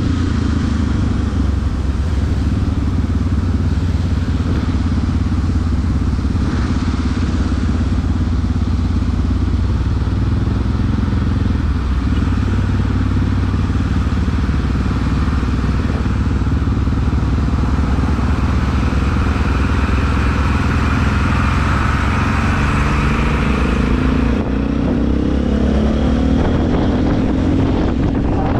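Motorcycle engine running under way, with wind rushing over the microphone. Near the end the engine note climbs as the bike speeds up.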